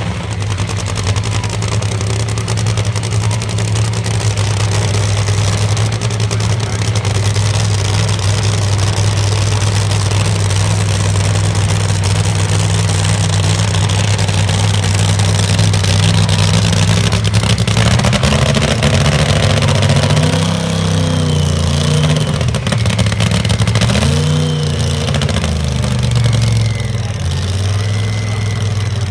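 A high-horsepower competition engine, billed as 8000 hp, held at steady high revs during a smoky burnout, with a constant hiss over it. From about eighteen seconds in, its revs rise and fall repeatedly.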